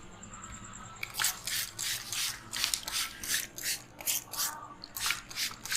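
Brisk rubbing strokes on hair and scalp during a head massage, starting about a second in and repeating quickly, about three strokes a second.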